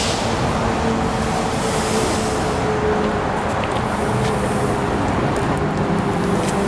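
Steady road-traffic noise with a constant mechanical hum.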